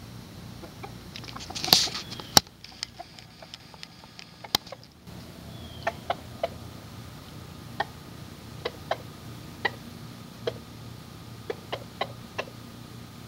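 Rooster giving short, clipped clucks at irregular intervals: the food call (tidbitting) a rooster makes to draw a hen to food. About two seconds in there is a louder noisy burst and a sharp click.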